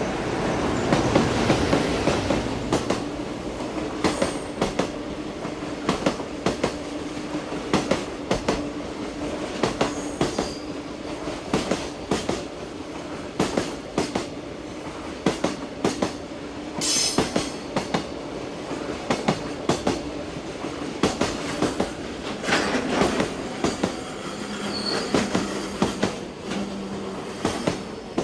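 Electric-hauled container freight train passing, its wheels clacking over rail joints in a steady repeating rhythm, the clacks often coming in pairs. It is loudest in the first couple of seconds, and a brief high wheel squeal rises about 17 seconds in.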